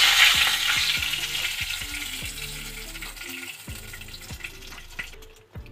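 Hot oil sizzling around a marinated chicken leg pan-frying in a kadai, fading steadily away as the piece is lifted out with tongs.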